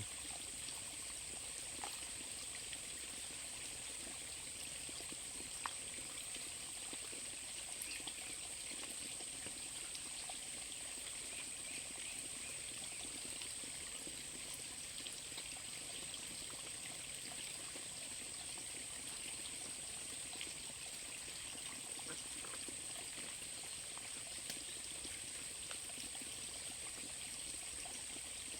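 Running water, steady and low, with a continuous high-pitched hiss over it and a few faint clicks.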